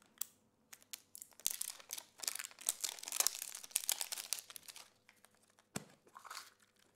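Surprise egg's wrapper crinkling and tearing as it is unwrapped by hand: a dense run of sharp crackles for about five seconds, then one sharp click and a little quieter rustling.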